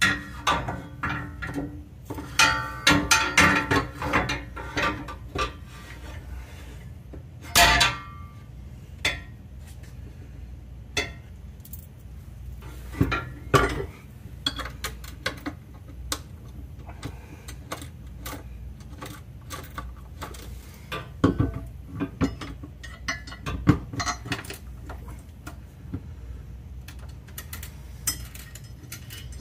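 Steel transmission-mount brackets clinking and knocking against each other and the transmission as they are handled and fitted by hand. There is a quick flurry of clinks in the first few seconds, then scattered single knocks over a steady low hum.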